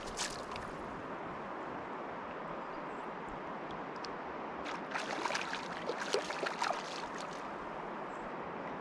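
Steady rushing of a flowing creek. A cluster of short, sharp splashing or clicking sounds comes over it about five to seven seconds in.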